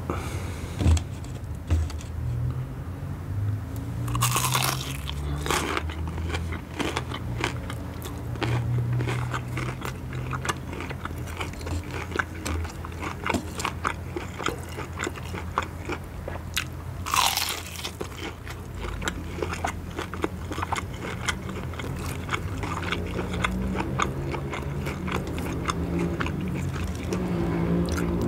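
Biting into and chewing crispy breaded fried chicken: loud crunches of the crust with steady crackly chewing. The biggest crunches come about four, five and a half, and seventeen seconds in.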